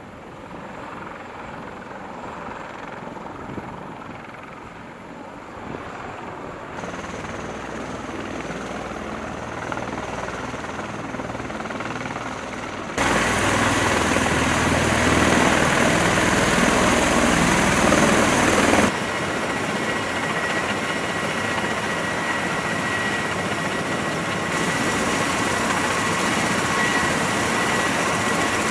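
Military rotorcraft, CH-53E Super Stallion helicopters and MV-22B Osprey tiltrotors, running on the ground with their rotors turning: a steady rush of rotor and turbine-engine noise. It gets louder in steps, is loudest for several seconds in the middle, and a thin high turbine whine holds steady in the last third.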